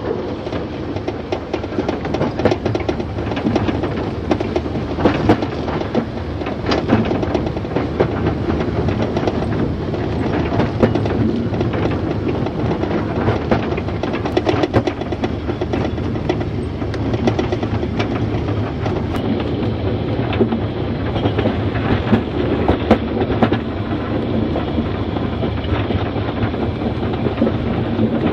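Narrow-gauge steam train running, heard from on board: a steady rumble with the clicking and clatter of wheels over the rails.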